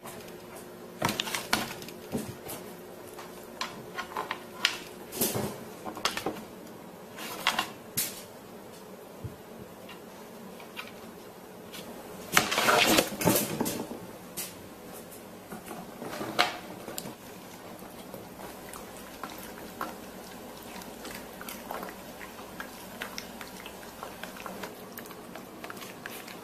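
A dog biting into a raw head of cabbage: scattered sharp crunches and crackles of leaves snapping and tearing. The loudest burst of crunching comes about halfway through.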